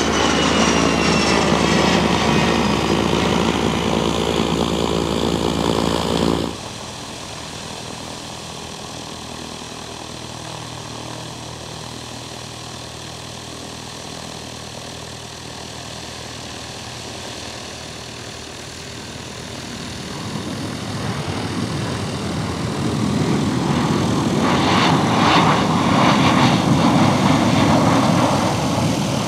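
Business jet engines at takeoff power as the jet climbs away, with a high whine sliding down in pitch; about six seconds in the sound cuts off abruptly to a quieter, steady jet noise from a jet low over the runway. Over the last several seconds a louder engine and propeller sound builds from a single-engine propeller plane rolling down the runway.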